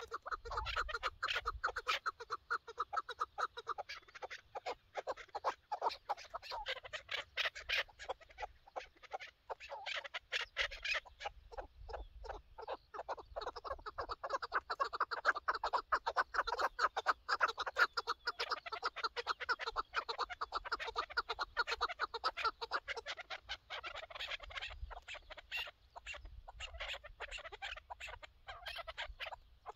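Chukar partridges calling: long runs of rapid clucking notes, many each second, going on almost without a break.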